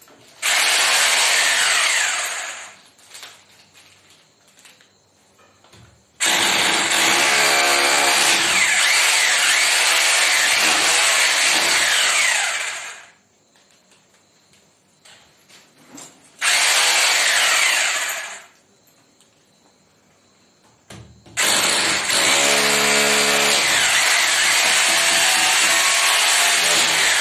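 Corded electric drill boring holes into a wall, run four times: a short burst, a long run of about seven seconds, another short burst, then another long run of about six seconds.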